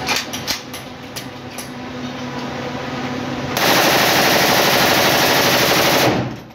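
An AK-47-pattern 7.62×39 mm assault rifle fires a full-automatic burst of about two and a half seconds that stops abruptly, after a few separate sharp cracks. The burst is a 40-round magazine test fire inside a small brick-walled room.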